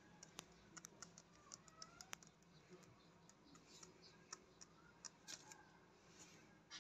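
Near silence with scattered faint, irregular clicks and ticks.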